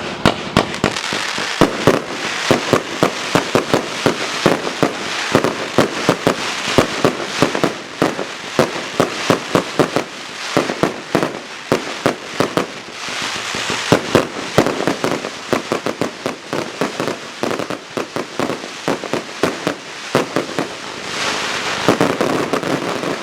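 A 126-shot compound firework cake firing: a rapid run of launch thumps and bursting reports, several a second, over continuous crackling, swelling in places into denser volleys.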